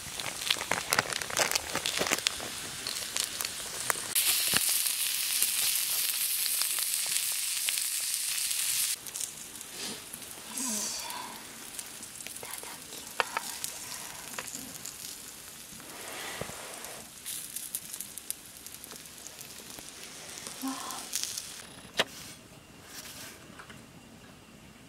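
Eggs and sausages sizzling in a cast-iron skillet over a crackling wood fire. A loud steady frying hiss runs from about four to nine seconds in, then it drops to quieter scattered clicks and crackles.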